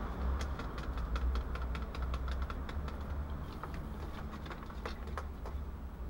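A quick, irregular run of small clicks and crackles from small objects being handled, over a steady low rumble. The clicks thin out after about five seconds.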